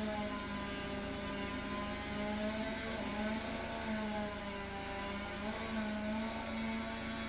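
Chainsaw engine running steadily at high speed, its pitch wavering slightly up and down.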